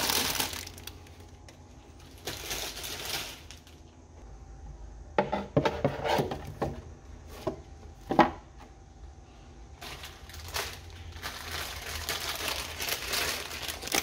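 Plastic instant-noodle packets crinkling as they are handled. Several sharp knocks and clacks in the middle come from a clear acrylic organizer bin being set down on a shelf.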